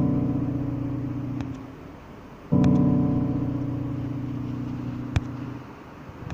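Piano chords, one struck about two and a half seconds in, each ringing out and fading slowly over a steady background hiss. A faint click near the end.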